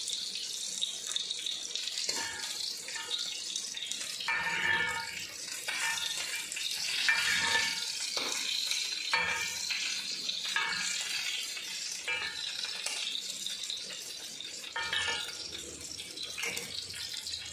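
Basmati rice simmering in water in a cast-iron pan, a steady bubbling hiss, while a metal slotted spatula gently stirs it, making intermittent scraping and stirring sounds.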